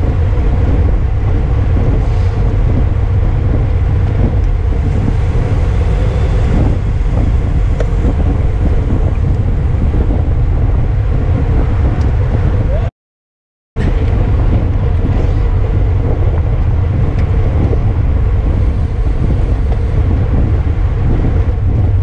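Heavy wind rumbling on a camera microphone riding along in a bicycle road race, steady throughout, cutting out completely for under a second about halfway through.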